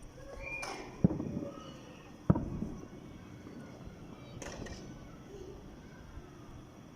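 Distant fireworks bursting: two sharp bangs a little over a second apart, each followed by a rumbling echo, then fainter crackle and rumble.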